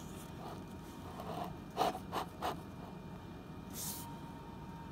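A person sniffing and breathing faintly while smelling a glass of beer: a few soft short sniffs in the middle and a sharper breathy sniff about four seconds in.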